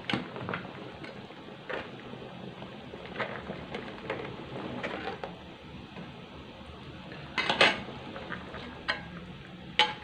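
Metal ladle knocking and scraping against a metal wok as a thick coconut-milk crab curry is stirred: scattered clinks, with a louder clatter about seven and a half seconds in and a sharp knock near the end.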